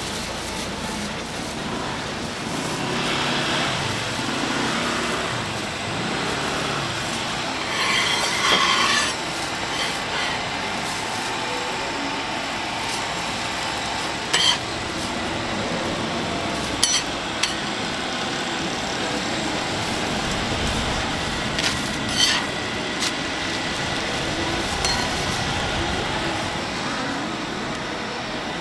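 Metal spatula scraping and tapping on a crepe griddle while a crepe is folded, a few sharp clicks over a steady background hum.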